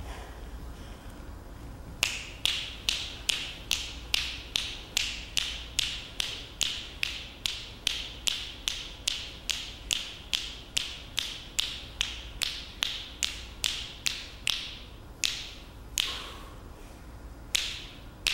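Sharp, snapping clicks in a steady rhythm, about two and a half a second, starting about two seconds in. Near the end they thin out to a few scattered clicks.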